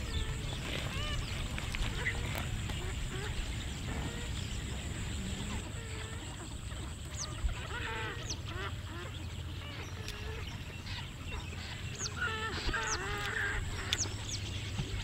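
Birds calling: a mix of short calls repeated in quick runs and high, thin chirps scattered throughout.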